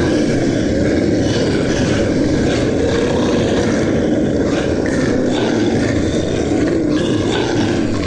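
Monster sound effect: a long, rough, continuous growl held at a steady level.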